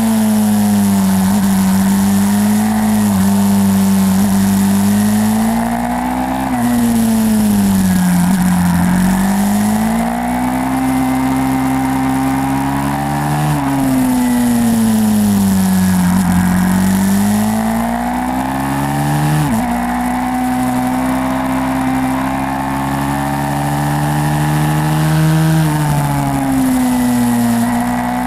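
YCF 150 SM pit bike's single-cylinder four-stroke engine running hard, its note climbing under acceleration and falling back again and again as it is ridden around a track, with several sharp drops when the throttle is shut or a gear changes.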